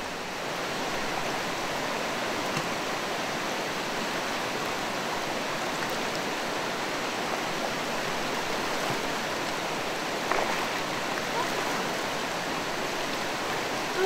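Steady rushing of a fast, rain-swollen river running over rocks.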